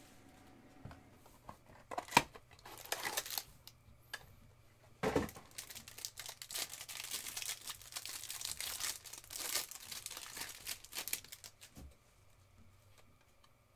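Plastic shrink wrap being torn and crumpled off a trading card box. There are short scattered rips at first, then a sharp tear about five seconds in, followed by about six seconds of steady crinkling that stops about twelve seconds in.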